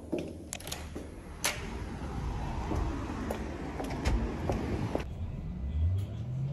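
Footsteps and a few sharp clicks, then, from about five seconds in, a vehicle's drive hum heard from inside the cabin, rising steadily in pitch as it pulls away.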